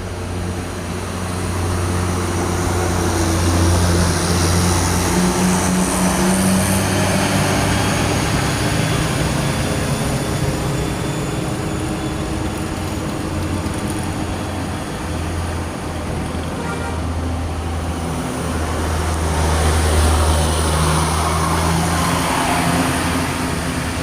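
Tour buses climbing a steep incline one after another, their diesel engines running under load with a low drone that shifts in pitch, loudest about four seconds in and again near twenty seconds as buses pass.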